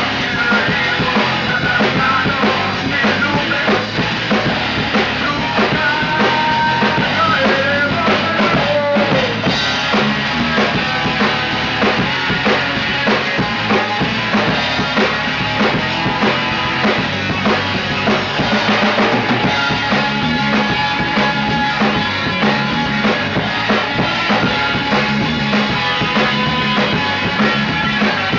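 Rock band playing: drum kit keeping a steady beat under guitars, with pitch-bending lead lines in the first ten seconds or so.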